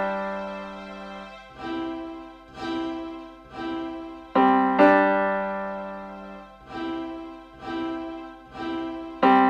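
Background piano music: single notes and chords struck at a slow pace, about one a second, each ringing and dying away.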